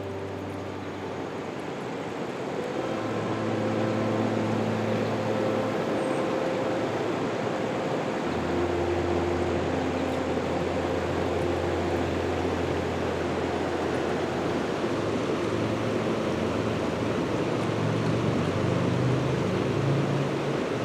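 Background music: slow ambient chords held for several seconds each over a hazy noise-like texture, changing to a new chord every few seconds.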